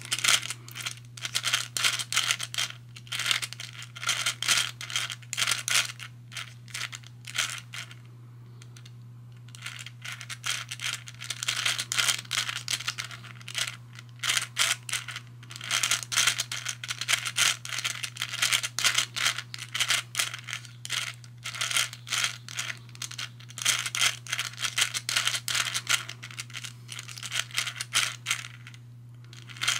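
Hungarian Rings puzzle being turned by hand: the balls click and rattle around the ring tracks in quick runs, pausing twice.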